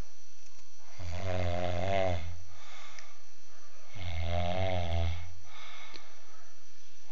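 A man snoring: two long snores about three seconds apart, each with a wavering pitch.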